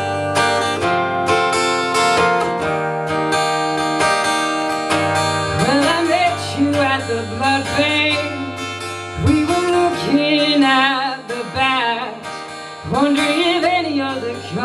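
Yamaha acoustic guitar strummed in a slow chord intro. A woman's singing voice joins it about five and a half seconds in.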